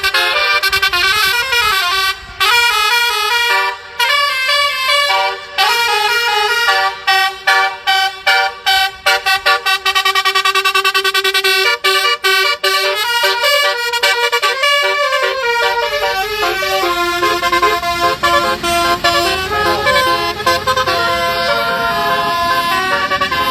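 Telolet basuri musical air horn playing a melody in stepped notes, with a run of quick staccato toots partway through and longer held notes around it.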